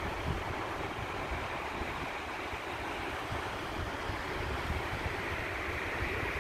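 Steady rush of whitewater from a spring-fed creek cascading through a canyon below, with wind gusting on the microphone in low, uneven rumbles.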